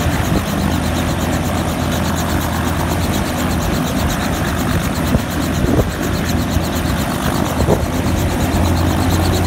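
Small helicopter running on the ground, its engine making a steady drone under the fast, regular chop of the turning main rotor blades.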